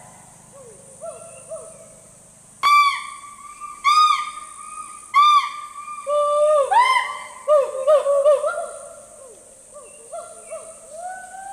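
Hoolock gibbons calling: loud rising-and-falling whoop notes repeated about once a second, then speeding up into quicker overlapping whoops at two pitches before fading to fainter calls.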